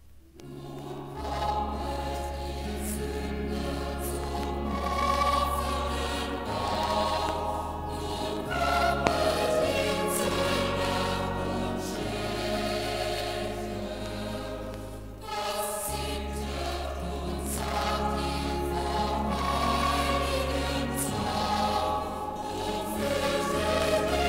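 Choir singing Christmas music played from a vinyl LP on a turntable, over sustained low bass notes. It starts about half a second in, after a quiet gap between tracks.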